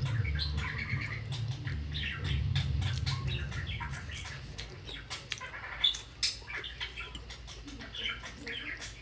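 A pet bird chirping and squawking over and over. A low rumble runs through the first few seconds, and sharp crunches of a cracker being bitten and chewed come around the middle.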